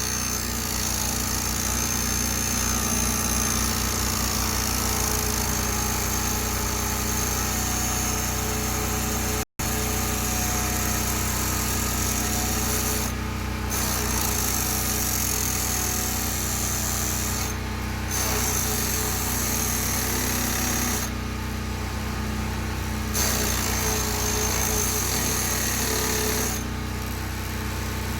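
Electric chainsaw chain grinder running steadily, its grinding wheel pressed down onto the saw chain's teeth with a high grinding hiss. The hiss breaks off briefly several times in the second half, as the wheel is lifted to move the chain on to the next tooth.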